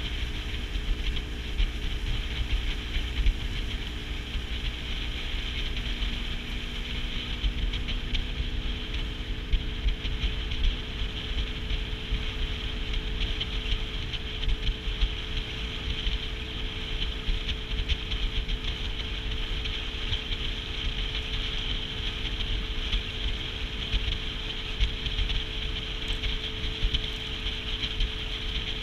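A small boat's outboard motor running steadily at low speed, holding an even drone, with wind rumbling on the microphone.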